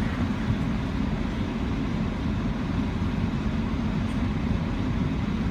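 Stock 2002 Toyota Tacoma pickup driving into a river crossing, its engine running with a steady low rumble.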